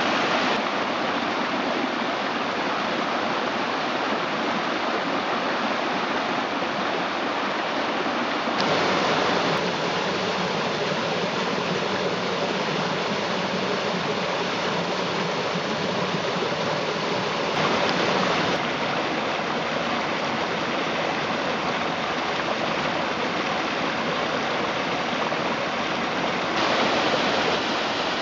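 Mountain creek water rushing steadily over rocks, a constant even wash. The sound swells briefly three times, each lasting about a second.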